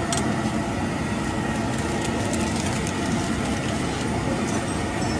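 Steady low rumble of busy street noise, traffic-like, with a light click just after the start.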